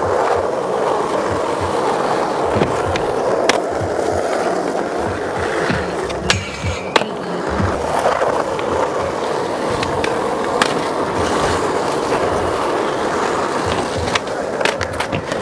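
Skateboard wheels rolling over rough asphalt, a steady close rumble. A few sharp board clacks come now and then, with several close together near the end.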